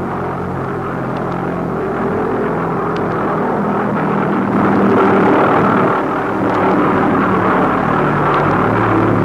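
Aircraft engines droning steadily, slowly growing louder toward the middle.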